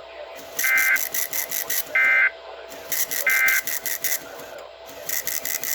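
Three short bursts of EAS SAME digital data tones, a harsh screechy warble, evenly spaced a little over a second apart: the end-of-message code that closes an Emergency Alert System broadcast. A faint steady tone and fast regular ticking interference from the radio reception run underneath.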